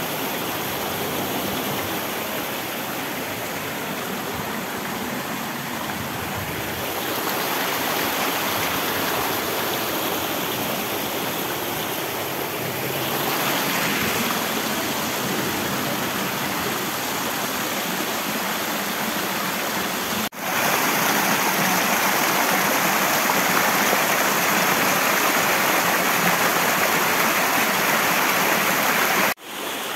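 Rushing stream water, a steady hiss that cuts out for an instant about twenty seconds in, comes back louder, and cuts out again near the end.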